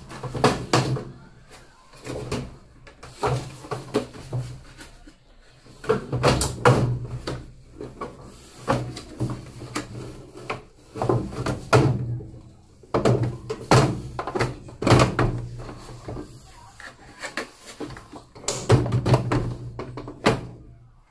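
Plastic top panel (worktop) of a washing machine being pried and lifted open: irregular clusters of knocks, thuds and rattles.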